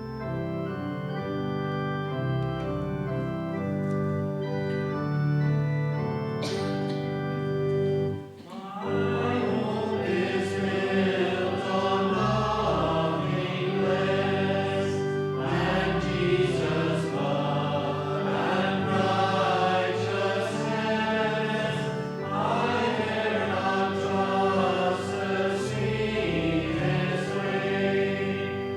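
Church organ playing the introduction to a hymn with steady held chords. After a short break about eight seconds in, the congregation starts singing the hymn with the organ accompanying.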